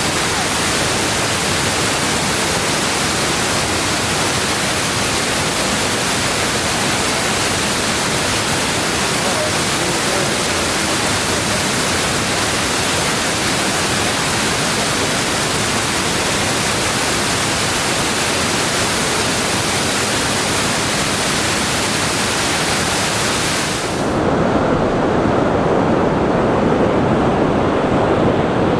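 Waterfall rushing: a loud, steady, even noise of falling water. Near the end it cuts suddenly to a lower, duller rushing sound.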